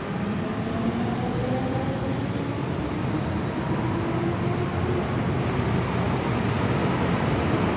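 MTR M-train electric multiple unit pulling out of an underground station, its traction motors whining with a slowly rising pitch over the steady rumble of the wheels on the track.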